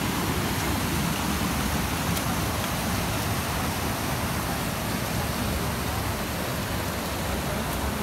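Steady rush of a waterfall's falling water, an even hiss and rumble with no change.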